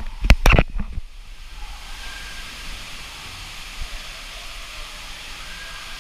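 Steady rushing of running water, after a few loud bumps in the first second.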